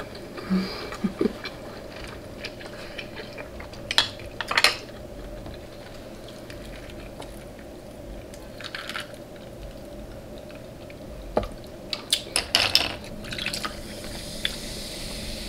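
Close-up wet food-handling sounds at a seafood platter: crab and sausage worked in a butter sauce, the sauce dripping and squishing, with scattered sharp clicks and knocks against the dishes, a cluster of them near the end.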